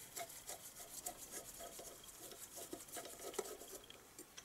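Faint scraping and small clicks of a screwdriver working against the metal of a small Briggs & Stratton engine as its ignition coil is loosened, with one slightly sharper click about three and a half seconds in.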